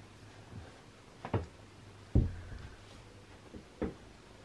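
Three soft, low thuds of footsteps on a carpeted floor, spread a second or so apart, over a faint steady hum.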